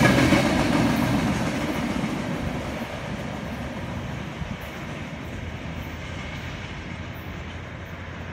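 Mixed freight train's last cars rolling by on the rails, the wheel-on-rail rumble fading steadily as the train draws away.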